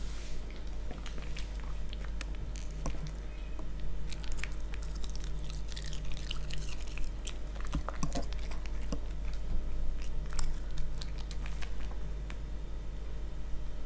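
Toy poodle eating: close, irregular chewing and biting with wet mouth clicks and small crunches.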